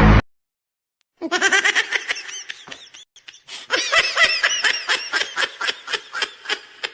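High-pitched giggling laughter: a rapid string of short, arching 'ha' pulses. It starts about a second in and breaks off briefly a little after halfway.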